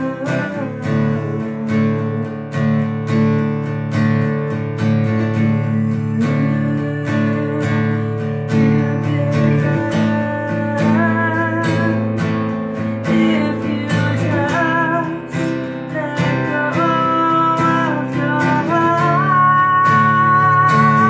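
A steel-string acoustic guitar is strummed in a steady rhythm, and a woman sings over it, her voice coming in more clearly from about halfway through.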